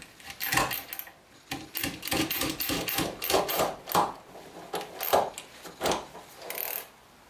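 A screwdriver being worked on a screw in a cast-iron machinist's vise, giving short runs of rapid metallic clicks and rattles that stop a little before the end.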